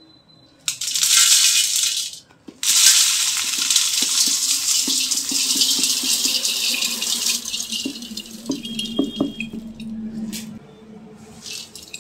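Puffed rice poured into a stainless steel bowl: a dry, rattling hiss of the grains pattering on the metal. A short pour comes about a second in, then a longer steady pour that thins out and fades over several seconds.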